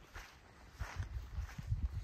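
A few footsteps crunching on the ground over a low, uneven rumble.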